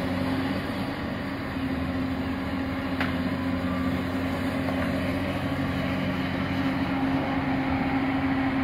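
Engine of heavy construction machinery running steadily with a constant-pitched hum, and a single faint tap about three seconds in.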